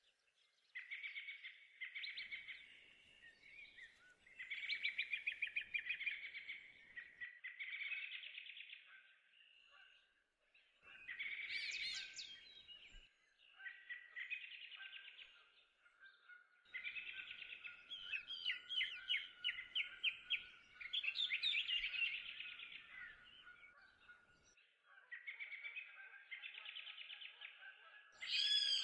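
Toucan calling in repeated bouts of fast, pulsed calls, some lasting a second or two and one running on for several seconds, with short pauses between.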